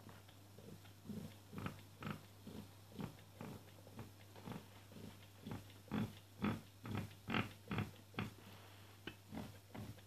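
Stepper motor of an Anet A8 3D printer grinding in rhythmic pulses, about two a second, loudest a little past the middle, over a steady low hum. This fits an axis being driven into its hard stop when the faulty end stop connector fails to trigger.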